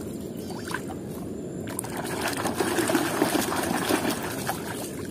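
A hand swishing and splashing water in a plastic tub, with harder churning and sloshing from about two seconds in.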